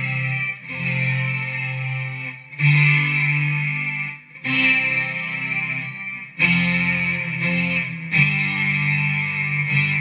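Guitar played through a BOSS SY-200 synthesizer pedal: sustained synth chords, a new one struck about every two seconds with short breaks between.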